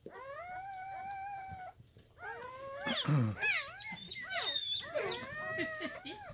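Newborn German Shepherd puppies crying: one long, steady high-pitched whine, then, from about two seconds in, several overlapping squeals that slide up and down in pitch.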